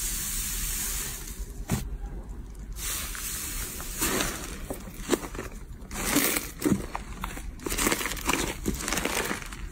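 Slime being squished and worked by hand: a run of small crackles and pops, growing busier about four seconds in.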